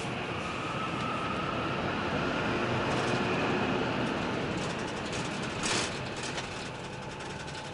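Steady engine and road noise inside a highway coach, with a faint whine rising in pitch over the first few seconds and a short hiss about six seconds in.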